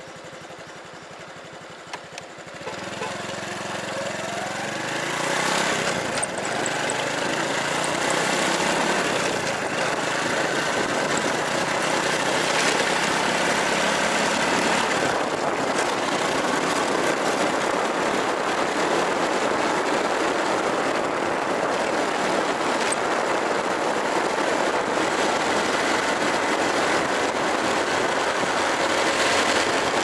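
Honda Super Cub 110 motorbike ridden with an action camera's built-in microphone exposed to the wind. In the first few seconds the engine is heard picking up speed; after that a steady, loud rush of wind noise on the microphone covers the engine almost completely.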